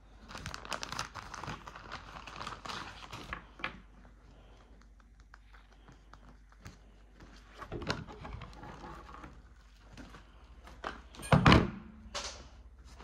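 Close rustling and crinkling of fabric and small items being handled, in a few bouts, with one loud thump near the end.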